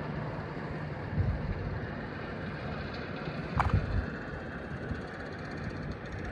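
Wind blowing across the microphone over a steady rushing background, with two stronger buffets, one just after a second in and another around three and a half to four seconds in.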